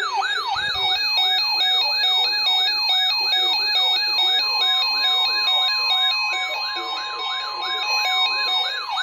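Weather radio warning alarms sounding during a required weekly test. A siren-like tone sweeps downward about three times a second over alternating beeps, and about halfway in the steady 1050 Hz NOAA Weather Radio warning alarm tone joins.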